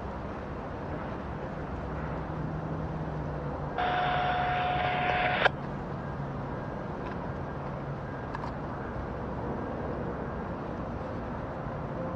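Distant diesel locomotives of an approaching freight train running with a steady low rumble. About four seconds in, a louder hissing tone lasts about a second and a half and cuts off abruptly with a click.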